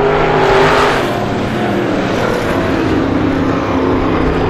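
Several race car engines running together at speed, their overlapping pitches drifting slightly as the pack goes around the track.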